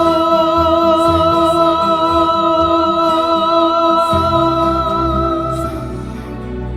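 A duet song's closing moment: one long sung note held with vibrato over the backing track, which shifts to lower closing chords about four seconds in; the held note ends shortly before the end and the accompaniment rings on softly.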